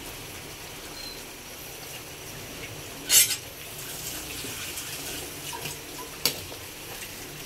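Chicken tinola broth simmering in a metal pot with a steady hiss while moringa leaves go in. A spoon or plate scrapes against the pot about three seconds in, and a single sharp clink of the utensil on the pot comes just after six seconds.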